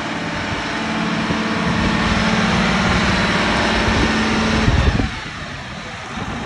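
John Deere 8R-series tractor's diesel engine running close by: a steady, loud drone with a low hum that builds, then drops off sharply about five seconds in.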